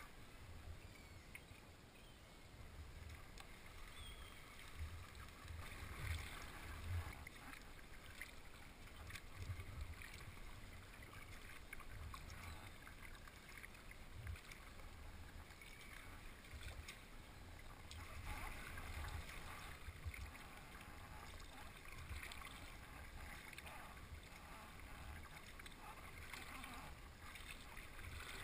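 Kayak paddling on calm water: paddle blades dipping and splashing in an uneven rhythm, with low thumps scattered through.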